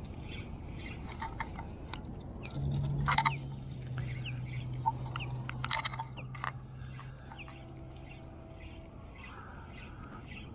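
Birds chirping with short rising and falling calls, over a faint regular ticking about twice a second. A steady low hum joins about a quarter of the way in and fades out past the middle.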